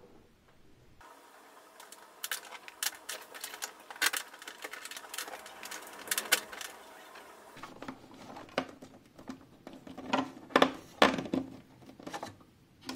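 Hands fitting a flat ribbon cable into 3D-printed plastic cable clips on a plastic enclosure wall: rustling with scattered clicks and taps, the loudest a few sharp clicks about two-thirds of the way through.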